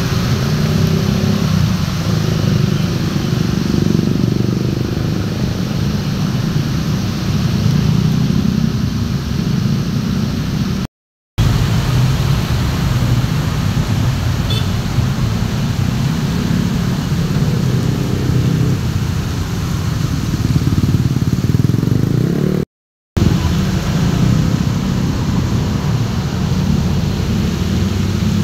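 Steady road traffic of cars and motorcycles passing on a wet road, a continuous rumble of engines with tyre noise from the wet surface. The sound drops out completely for about half a second twice, around 11 and 23 seconds in.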